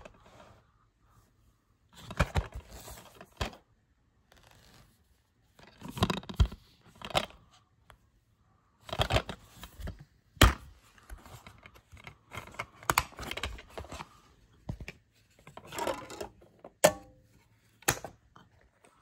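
Hands handling a plastic DVD case and disc: scattered rustles, scrapes and several sharp plastic clicks. Near the end, the lid of a portable DVD player is pressed shut with a click.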